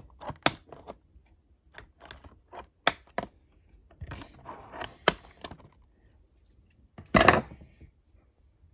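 Sharp plastic clicks and snaps with cardboard rustling as a boxed plastic dinosaur action figure is worked free of the ties holding it to its packaging, with a louder crunch about seven seconds in.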